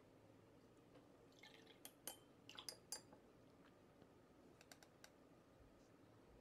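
A watercolour brush being rinsed in a glass water jar: a cluster of light clinks and taps about one and a half to three seconds in, and a few fainter ticks near five seconds, all very quiet.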